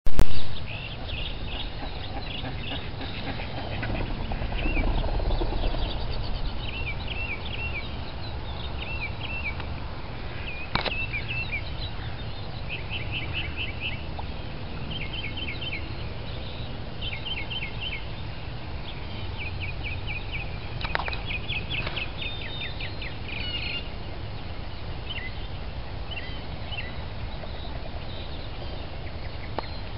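Wild birds chirping and calling in quick runs of high repeated notes, over a steady low outdoor rumble that swells briefly about four to six seconds in. A short loud burst at the very start and a couple of sharp clicks cut in.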